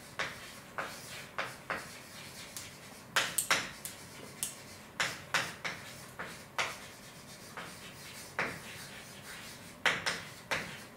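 A run of irregular sharp clicks and taps, some coming in quick pairs, over a faint steady low hum.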